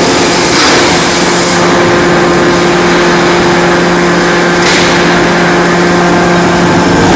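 Loud, steady running noise of a hot-forging production line, with a constant low drone. A rushing hiss comes in about four and a half seconds in.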